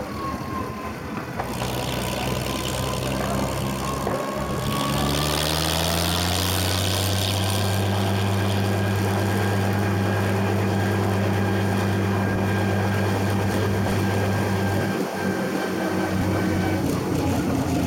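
Green John Deere farm tractor's engine towing a loaded passenger wagon. It speeds up over a few seconds, then runs steadily, with a brief dip about three seconds before the end.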